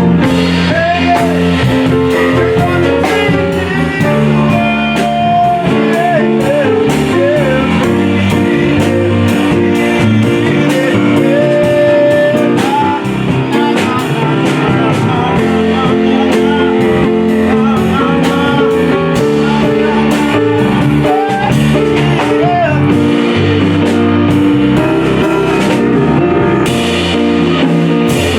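Band of electric guitar, bass and drum kit playing a blues-tinged groove, the guitar carrying the melody with a few bent notes.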